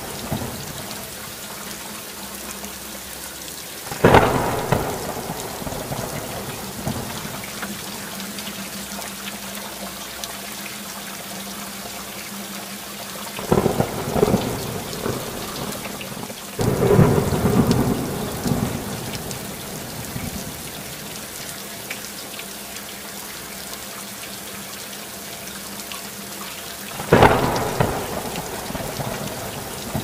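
Steady rain falling, broken several times by sudden loud claps of thunder that fade out over a second or two.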